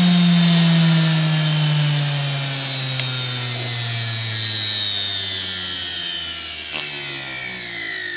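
Washing-machine universal motor (220 V, rated 13,000 rpm) winding down from full speed, its whine falling steadily in pitch and fading. A short click comes near the end.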